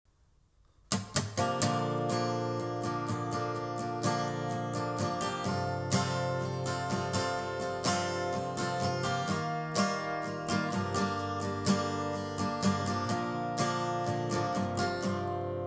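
Acoustic guitar strumming a song's instrumental opening, starting about a second in after faint room hiss.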